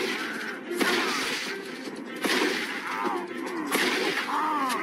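Three shotgun blasts, about a second and a half apart, over background music.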